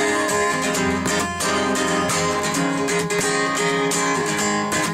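Background music: a song with strummed acoustic guitar playing steadily.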